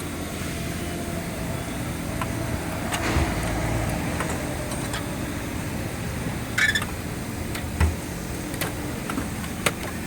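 Handling of a Snap-on metal toolbox's drawers and contents: a few short metallic clicks and knocks over a steady background hum.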